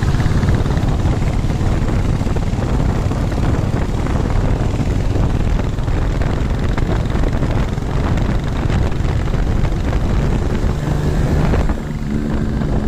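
Wind rushing over the microphone of a moving motorcycle, mixed with engine and road noise from the bikes riding on a wet road. The noise drops somewhat near the end.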